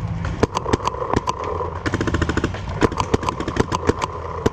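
Paintball markers firing: scattered shots and quick strings, with a very rapid burst of shots about two seconds in.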